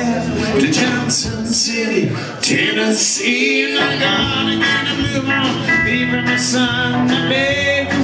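Country-rock band playing live: electric and acoustic guitars, bass guitar and drums, with a man singing lead.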